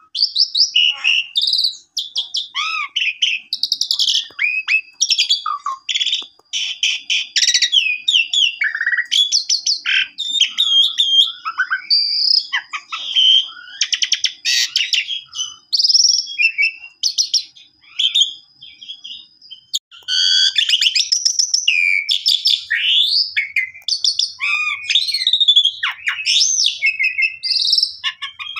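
Asian pied starling (jalak suren) in full, continuous song: a rapid, varied stream of whistled glides, fast trills and harsh rasping chatter, full of mimicked phrases. It pauses briefly about two-thirds of the way through, then bursts back in.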